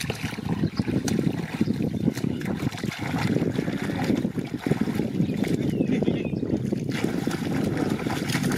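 Shallow muddy water sloshing and splashing steadily as hands churn and grope through it for fish.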